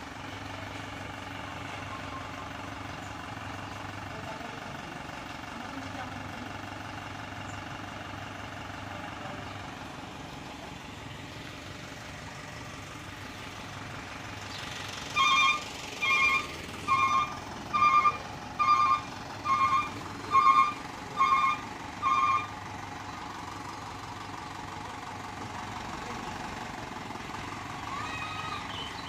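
A truck's reversing alarm beeps nine times, a little under a second apart, about halfway through. A truck engine runs steadily underneath.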